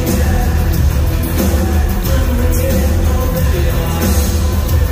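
Electro-industrial band playing live, loud, with heavy bass.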